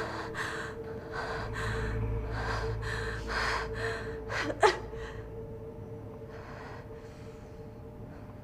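A person gasping for breath in quick, rasping pants, about two a second, with a short sharp strained cry near the middle. The panting stops about five seconds in, leaving a faint steady hum.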